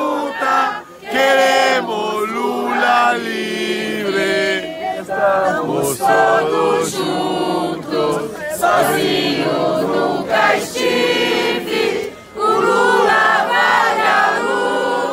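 A large crowd of men and women singing together in unison, with a man's voice close by, and brief breaks between phrases.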